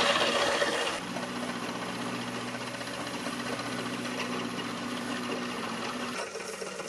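Small milling machine running with an end mill cutting a flat face into a metal sphere: a steady machine hum under the noise of the cut. It is louder and harsher for about the first second, then settles to an even level.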